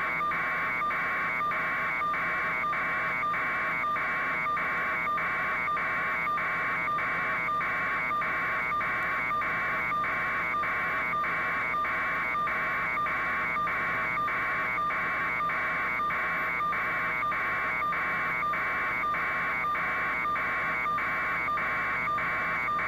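Steady electronic buzz on the helicopter's audio feed, pulsing evenly about two and a half times a second over a constant lower hum.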